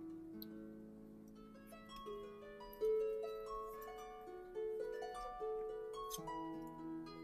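Background music: a gentle melody of plucked harp-like notes stepping up and down.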